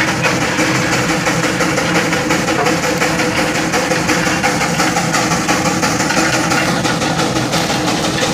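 1913 Geiser Peerless Model R steam traction engine running steadily as it travels.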